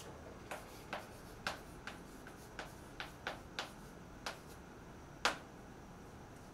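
Chalk tapping and clicking against a blackboard while writing: about ten sharp, irregular clicks, the loudest about five seconds in.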